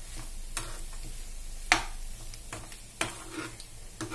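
A metal spoon stirring potato cubes in a frying pan, scraping and clinking against the pan a handful of times, the sharpest knock about halfway through, over a light sizzle of the potatoes frying in oil.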